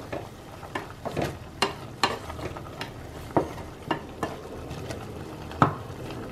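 Wooden spatula stirring chicken and dry yam stem in an aluminium pot, knocking and scraping against the metal at irregular intervals, with one louder knock near the end. Underneath is a low sizzle of the simmering contents.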